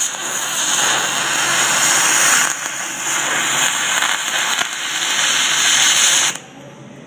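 MIG welder arc running on aluminum: a steady loud hiss that starts with a click, dips briefly about two and a half seconds in, and cuts off suddenly when the trigger is released about six seconds in.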